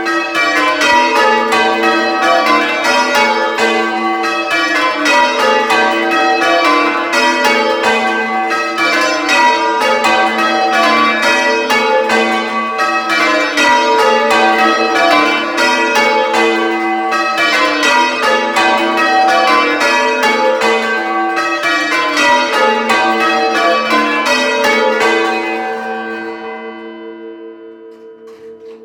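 A ring of six church bells (tenor in G) being rung full-circle in call-changes, heard close up in the belfry: a rapid, even run of strikes. About 25 seconds in the ringing stops and the bells' hum slowly dies away.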